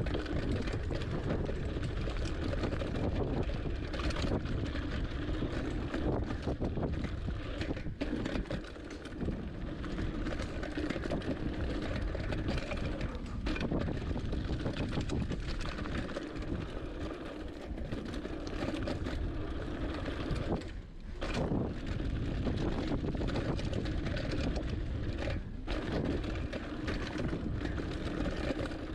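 Hardtail mountain bike descending a rough dirt trail at speed: tyres rolling over dirt and rocks, the bike rattling and knocking over bumps, with wind rushing over the microphone. The rattle comes from loose parts being shaken on the unsuspended frame.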